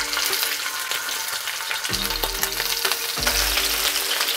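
Raw chicken wings sizzling as they are laid into hot olive oil in a frying pan: a steady, crackling frying hiss.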